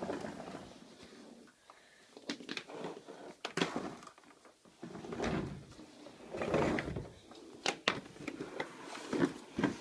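Scattered knocks, clatters and rustling from handling a vacuum cleaner and the phone filming it, with the vacuum's motor not running.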